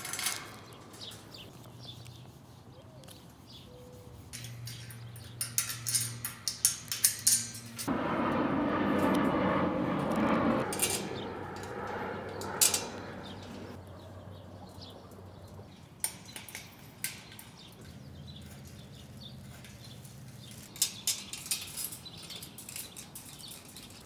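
Metal clinks, taps and rattles of a steel wire bird cage being fastened together by hand, in scattered bursts. A few seconds of steady rushing noise fill the middle.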